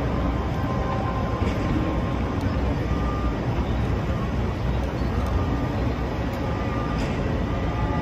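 Steady city street din, mostly the low rumble of traffic, with no distinct event standing out.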